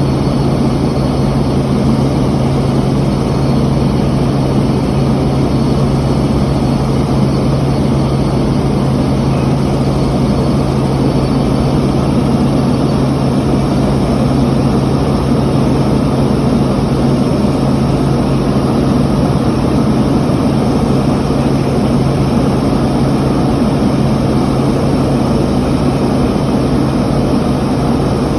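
Helicopter in flight: steady, loud engine and rotor drone with a constant low hum, unchanging throughout.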